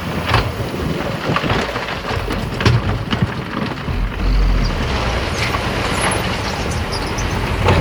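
Heavy earthmoving machinery running with a rough low rumble and scattered clanks and knocks. The rumble grows heavier about halfway through.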